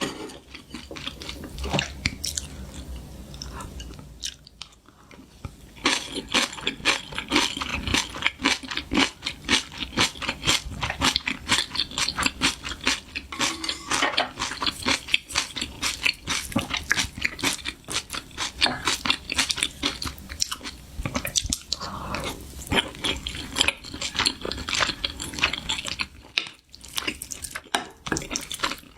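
A person biting and chewing crunchy food close to the microphone, in quick, steady crunches that grow louder about six seconds in.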